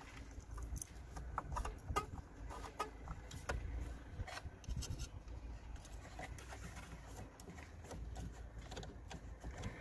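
Irregular light clicks and taps of hand tools (a screwdriver and a Torx-bit ratchet) working at the fuel filter housing lid, over a low wind rumble on the microphone.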